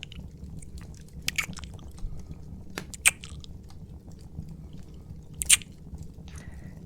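Close-up ASMR kissing sounds: a few short, wet lip smacks, the loudest about three and five and a half seconds in, over a steady low background hum.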